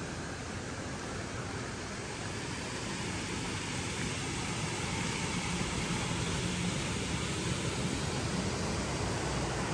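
A steady rushing noise with no distinct events, growing slightly louder partway through.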